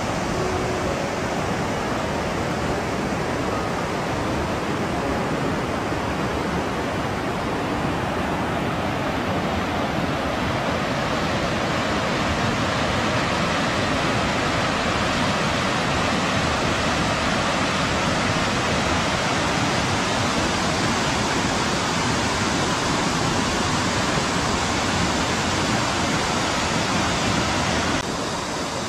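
Steady rush of a mountain valley stream, water pouring over rocks, dipping slightly near the end.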